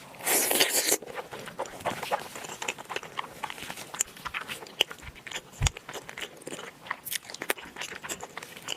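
Close-miked mouth sounds of a person eating gelatinous, collagen-rich meat. A loud rustling bite comes in the first second, then a run of small wet chewing clicks.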